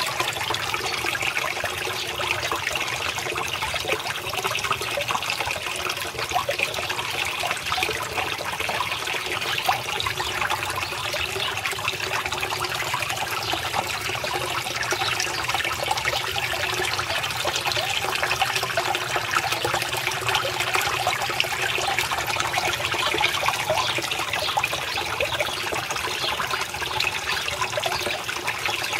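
Water steadily trickling and splashing as it falls into a small garden pond.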